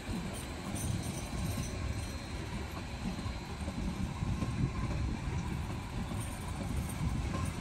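Electric multiple unit rolling slowly along the platform track: a low rumble of wheels on rail with irregular knocks, over a faint steady high whine.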